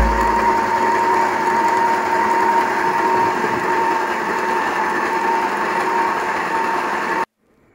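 Electric stand mixer running at a steady speed, its whisk beating a thick creamy mixture in a stainless steel bowl: a steady motor whine. The sound cuts off suddenly near the end.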